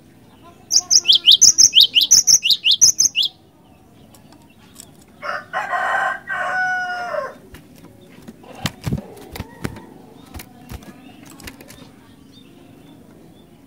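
Cinereous tit singing: a quick, loud run of about five repeated whistles, each a high note dropping steeply, over roughly two and a half seconds. A few seconds later a rooster crows for about two seconds, followed by a scatter of sharp clicks and knocks.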